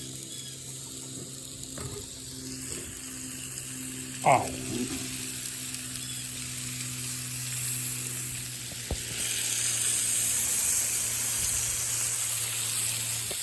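Bacon sizzling on a Blackstone flat-top griddle: a steady frying hiss that grows louder about nine seconds in.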